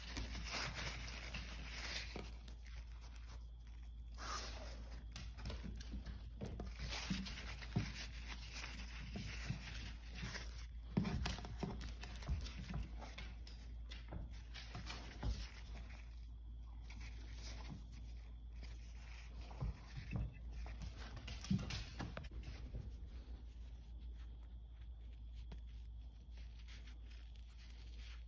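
Faint handling noises: scattered rustling, rubbing and light knocks from hands working over a wooden recurve bow.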